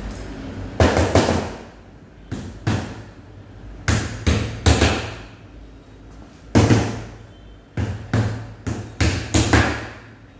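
Hammer driving small nails into a Billy bookcase's flat-pack panel: sharp strikes in short runs of two or three, about sixteen in all, each with a short ring.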